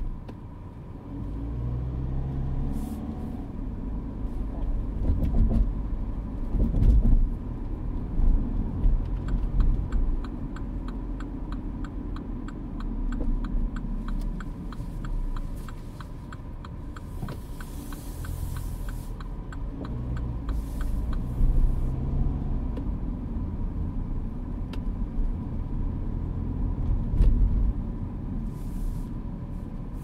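Mini Clubman driving in town, heard from inside the cabin: low engine and road rumble whose engine note rises and falls as the car speeds up and slows. A fast, even ticking runs for several seconds in the middle, and a brief hiss follows it.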